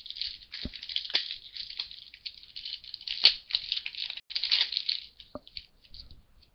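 Foil wrapper of a 2012 Panini Totally Certified Football card pack crinkling and tearing as it is opened by hand, with a few sharp clicks of card and packaging handling.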